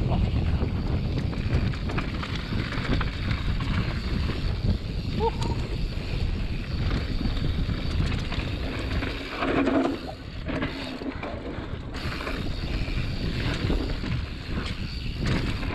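Wind buffeting the microphone as a mountain bike runs fast down a dirt trail, with the tyres rolling over the ground and the bike rattling on the bumps.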